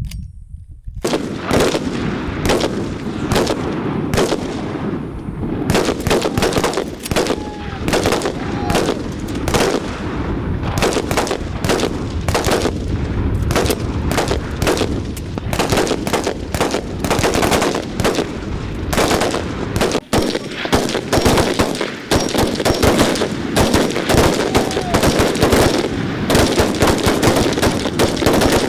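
Heavy, sustained gunfire: rapid overlapping shots and machine-gun bursts starting about a second in, with a brief lull near the 20-second mark.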